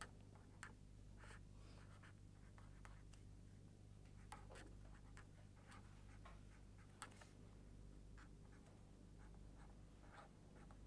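Faint scratching strokes of handwriting, with a few sharper taps, over a steady low hum.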